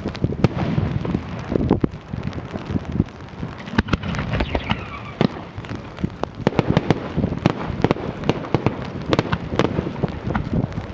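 Fireworks going off in quick, irregular succession: many sharp bangs and crackles, with a brief falling whistle about four seconds in.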